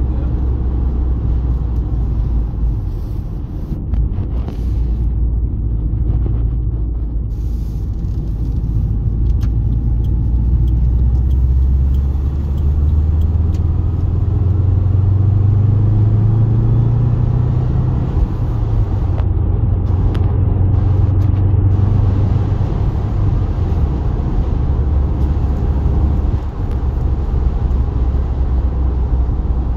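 Steady low rumble of a motor vehicle driving. Its engine note rises through the middle and then settles back down.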